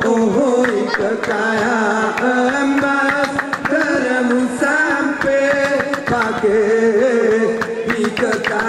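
Didong Gayo: a group of men singing a long-held, wavering melody over sharp, rhythmic hand claps.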